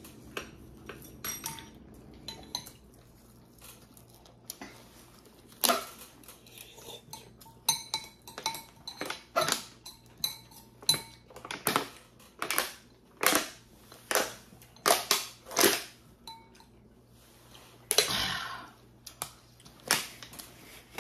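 Repeated short clinks and knocks of a metal spoon against a ceramic bowl, with swallowing sounds while drinking water from a plastic bottle. A plastic bottle crackles near the end.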